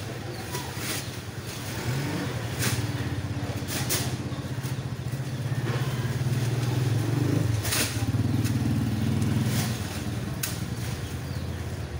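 A motor vehicle engine running with a low drone that swells for several seconds in the middle, mixed with a few short sharp knocks as rice sacks are handled and stacked.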